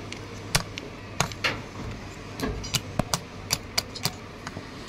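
Circlip pliers working the retaining ring inside the pulley bore of a car AC compressor's clutch: about ten sharp metal clicks at uneven spacing, over a steady low hum.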